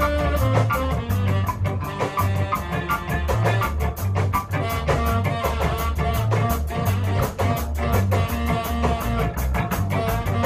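Ska band playing: a moving bass line and drum kit keep a quick, steady beat under guitar and other pitched instruments.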